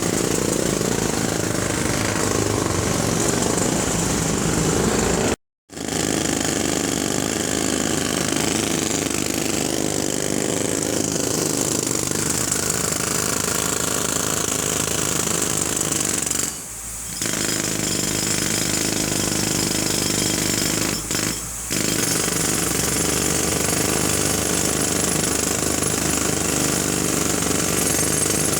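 Jackhammer hammering continuously with a loud, dense rattle. It cuts out for a moment about five seconds in and dips briefly twice more later on.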